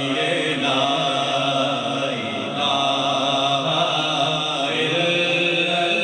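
A man singing a naat, an Urdu devotional song, into a microphone, holding long notes that waver slightly.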